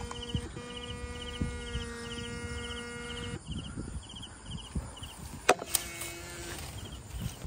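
Insects chirping in short high pulses about twice a second, over a steady electrical hum that stops about three and a half seconds in. Shuffling steps and rustling in weeds, with a sharp click about five and a half seconds in.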